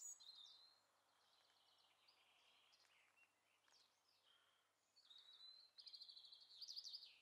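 Faint songbird singing: short chirping phrases, then a rapid run of repeated notes that stops near the end.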